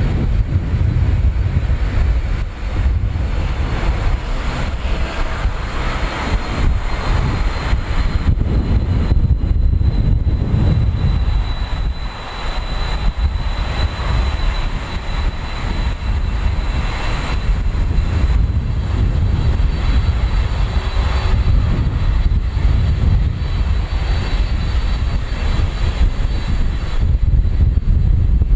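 Boeing 767-300 airliner's twin General Electric CF6 turbofan engines running at taxi power as it taxis past, a steady rumble with a thin high whine.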